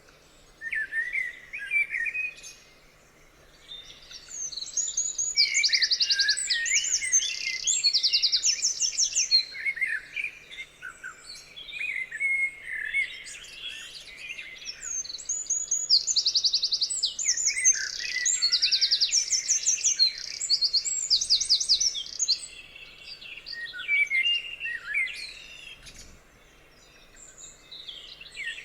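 Several songbirds singing at once in overlapping phrases, with bursts of fast, high trills of rapidly repeated notes. The song thins out briefly near the start and again a few seconds before the end.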